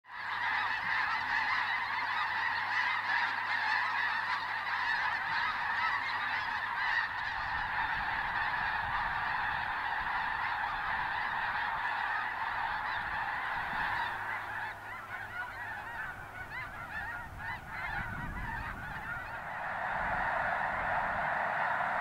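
A huge flock of snow geese calling all at once: a dense, continuous chorus of overlapping high honks. It thins a little past the middle and swells again near the end.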